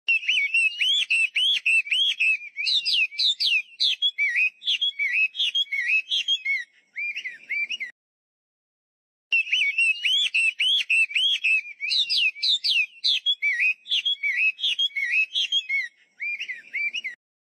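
A songbird singing a fast run of clear whistled, warbling notes. The song breaks off about eight seconds in, and after a second of silence the same song starts again.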